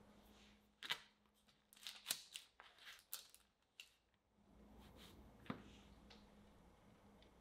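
Faint handling sounds of a metal ring cutter working through chilled chocolate chip cookie dough on parchment paper: a run of soft clicks and paper rustles in the first half, then one sharp tap a little over five seconds in as the cutter is set down.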